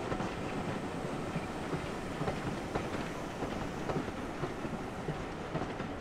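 A steam-hauled train running past close by, with a steady rumble and a stream of irregular clicks and knocks from its wheels on the track.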